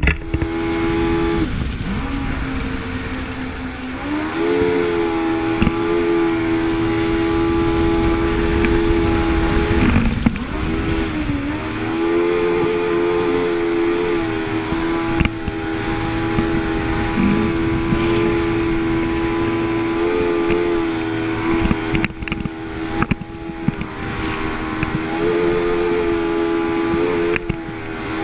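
Jet ski engine running hard at steady speed, its pitch climbing about four seconds in, dipping briefly around ten seconds and then picking up again, with small throttle swells later on. A rush of wind and water runs underneath.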